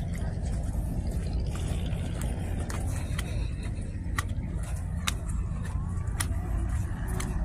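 Wind buffeting the handheld phone's microphone, a steady low rumble, with a few light clicks scattered through it.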